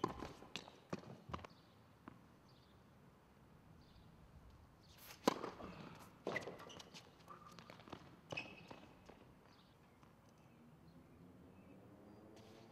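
Tennis ball being hit by rackets and bouncing on a hard court during a rally. There are a few light pops in the first second and a half, then a loud, sharp racket hit about five seconds in, followed by several lighter hits and bounces over the next three seconds.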